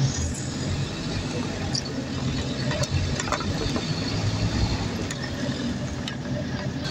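Scania OmniCity bus heard from inside the passenger saloon: steady engine and road noise, with a few short clicks scattered through it.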